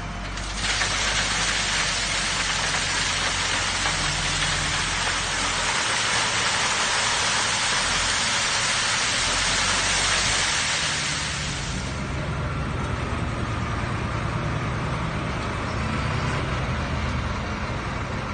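Gravel pouring from a wheel loader's bucket and sliding down an inclined sifting screen: a steady rushing rattle that starts just under a second in and stops about twelve seconds in. The loader's diesel engine runs under it throughout.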